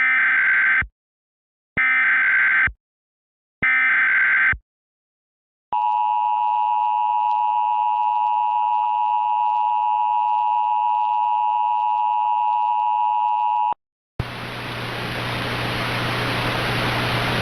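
Emergency Alert System header: three short data bursts about a second apart, then the steady two-tone EAS attention signal held for about eight seconds before it cuts off. After a brief gap, a steady hiss with a low hum begins.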